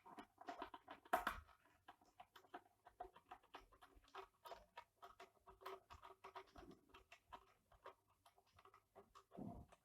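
Faint, irregular clicking and tapping of hand work on a UPS: a screwdriver and small metal and plastic parts being handled while the replacement battery is screwed in. A sharper knock comes about a second in.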